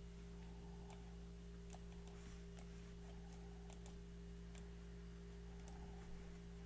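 Faint, irregular clicks from someone working a computer, over a steady low electrical hum.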